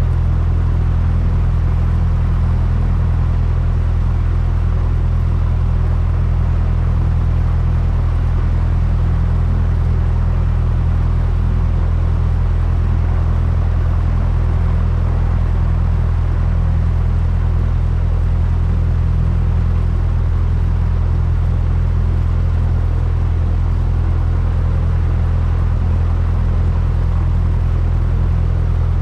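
Steady drone of a single-engine light aircraft's piston engine and propeller, heard inside the cabin. It holds an even pitch and level throughout.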